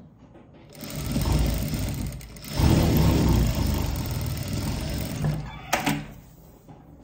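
JACK industrial sewing machine stitching at speed in two runs with a brief pause about two seconds in, then stopping; two sharp clicks come near the end.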